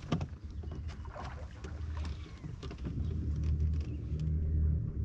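Small workboat on the water: a low, uneven rumble with scattered light clicks and knocks of handling around the boat.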